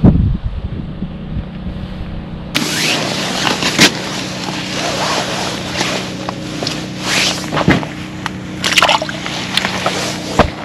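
Wind buffeting the microphone for the first couple of seconds. After that, close rustling and handling noise from a winter jacket, with sharp clicks and scrapes, as a caught bluegill is held in the hands over an ice-fishing hole.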